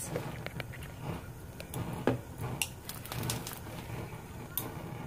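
Gas stove burner clicking and sputtering, with sharp irregular clicks over a low, uneven rumble: the flame is not lighting fully around the burner.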